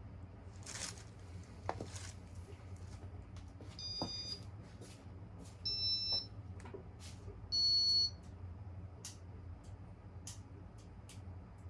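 Three short electronic beeps from a Casablanca Victorian ceiling fan's control, about two seconds apart and each at a slightly different pitch. A steady low hum and scattered sharp clicks run underneath.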